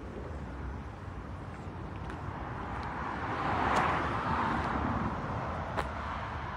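A passing vehicle's noise swells to a peak about halfway through and then fades, over a steady low rumble of outdoor background noise. There are a couple of light clicks.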